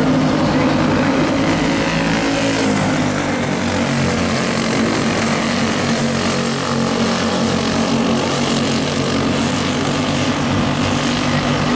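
Several dirt-oval racing kart engines running at once as the karts race around the track, a continuous, loud, overlapping engine drone.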